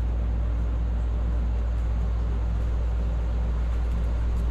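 Steady low hum with an even hiss above it, unchanging throughout.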